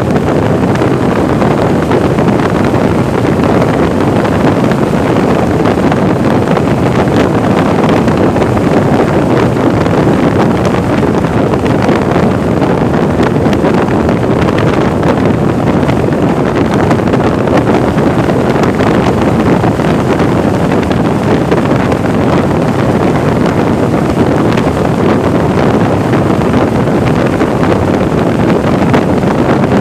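Steady wind noise blowing over the microphone of a Vespa 300 scooter under way, with its engine and road noise mixed beneath.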